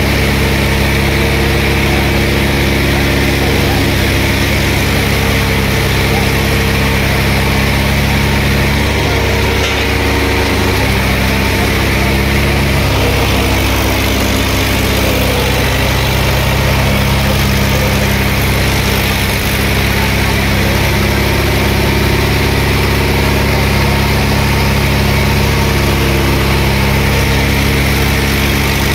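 Two diesel tractors, an Eicher 557 and a Swaraj 855, running hard at high revs under full load in a tug-of-war pull, their rear tyres spinning on the road. The engine note holds steady, with a brief dip about ten seconds in.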